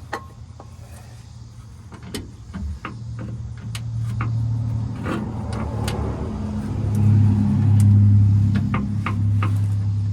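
A motor vehicle's engine hums steadily and swells louder about seven seconds in. Scattered sharp metallic clicks and knocks come from hand tools working a rusty nut.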